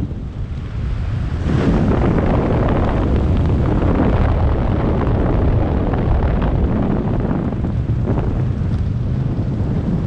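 Airflow buffeting the microphone during parachute canopy flight: a steady, loud low rumble of wind that swells in gusts a second or so in and again near the end.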